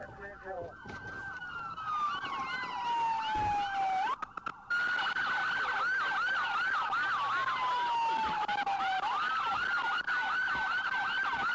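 Police sirens sounding together: a slow wail whose pitch falls over about three seconds and then jumps back up, repeating, with a rapid yelping siren over it. The sound cuts out briefly about four seconds in.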